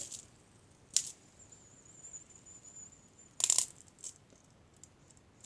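Small plastic fidget toys being handled and set down: a sharp click at the start, another about a second later, then a brief clatter about three and a half seconds in.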